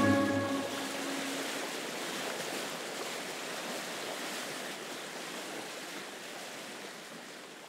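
Steady rushing wash of sea surf that slowly fades out, while the last notes of electronic music die away in the first second.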